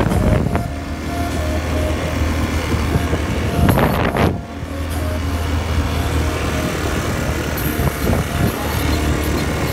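Quad bike (ATV) engine running steadily while being ridden over sand, with wind buffeting the microphone, in louder gusts near the start and about four seconds in.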